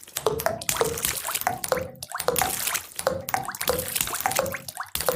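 Rain sound effect played back dry, with no reverb: raindrops splashing into water in short rising plips, about three a second, over a hiss of falling rain.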